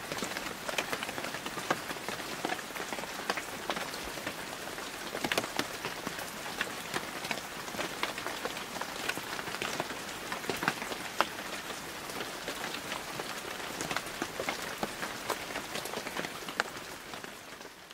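Steady rain falling on a wet surface, with many sharp individual drop hits over a continuous hiss, fading out near the end.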